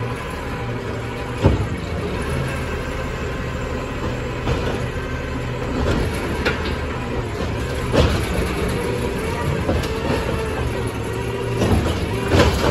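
Peterbilt 520 refuse truck idling with a steady low engine drone, broken by several sharp knocks and clatters about a second and a half in, around the middle, and near the end.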